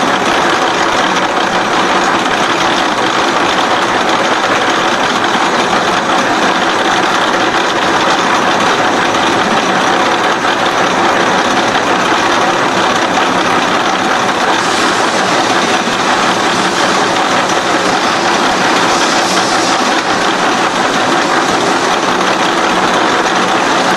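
SXA55 CNC H-beam bevelling machine running, its spindle cutter milling a bevel into the edge of a steel beam flange: a loud, steady mechanical grinding noise. A higher hiss swells for a few seconds past the middle.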